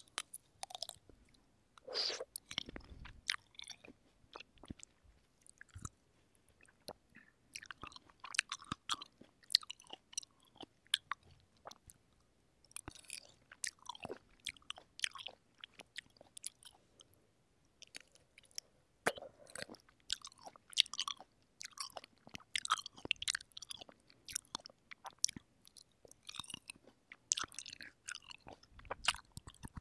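Close-up chewing of fresh, juicy cherries: wet bites and mouth clicks in bursts, with short pauses between mouthfuls.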